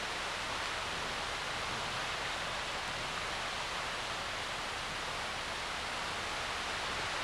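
Creek water rushing over rocks, a steady even hiss with no distinct events.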